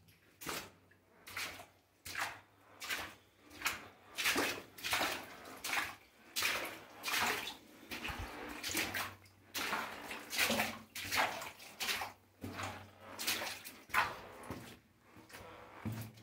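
Footsteps walking along the rocky floor of a mine tunnel, about two steps a second, each a short burst of scuffing noise.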